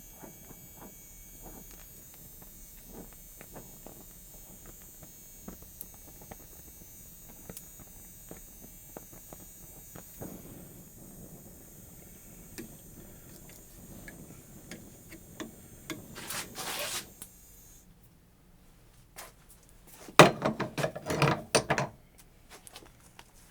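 Gas torch flame hissing faintly as it heats around a broken bolt stud, with scattered light ticks; the hiss cuts off suddenly about 18 seconds in. A few seconds later comes a burst of sharp metal clinks and clatter as vice grips work the heated broken bolt loose.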